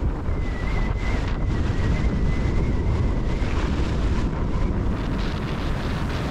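Strong wind of nearly 30 knots buffeting the microphone on a sailboat's deck, with waves rushing along the hull. A faint, high wavering whistle runs under it and drops lower about halfway through.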